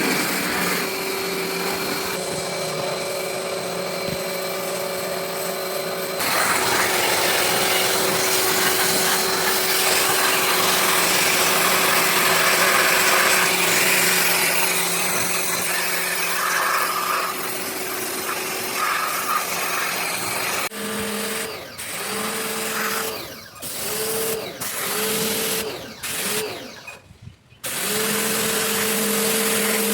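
A power tool's electric motor running steadily, then started and stopped in a series of short runs of about a second each before running steadily again.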